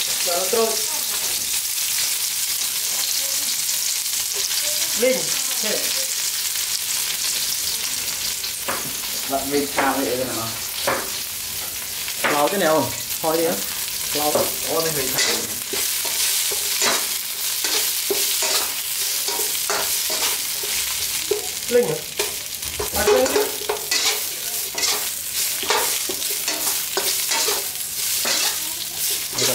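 Greens sizzling in a hot steel wok as they are stir-fried, with a metal spatula scraping and knocking against the pan again and again over a steady frying hiss.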